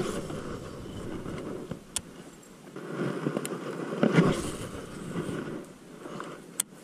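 Rustling and rubbing handling noise as a sweater sleeve and arm brush against a body-worn camera while a fishing rod is worked, swelling and fading, loudest about four seconds in, with a few sharp clicks.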